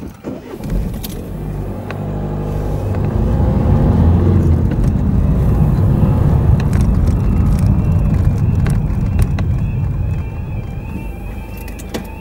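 A car's engine and tyre noise as it moves slowly along the road. The rumble builds over the first few seconds and eases off near the end as the car slows to a stop.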